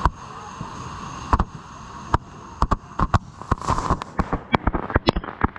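Fireworks going off: a few single sharp pops about a second apart, then a fast crackling run of bangs from about halfway in.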